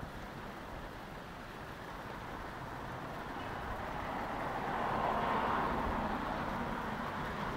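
Steady outdoor background noise that swells for a couple of seconds about halfway through and then eases off.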